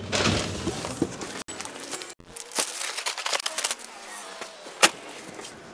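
Crinkling and rustling of flower packaging as items are handled and packed, in a cluster of short scratchy rustles, followed by one sharp click near the end.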